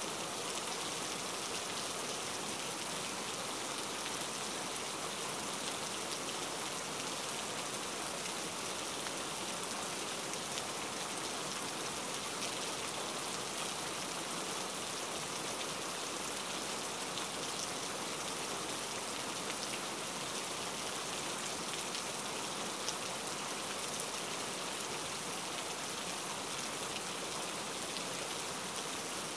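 Steady sizzling of cucumber slices frying in oil and spice paste in a pan, with faint crackles.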